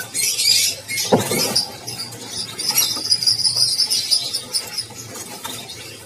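Many small caged birds chirping and squeaking in high, thin notes, with one held high whistle in the middle and a brief lower falling sound about a second in.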